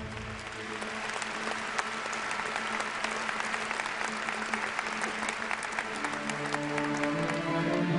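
Audience applauding: a dense patter of handclaps, with quiet music underneath. A new music passage with a low note swells in near the end.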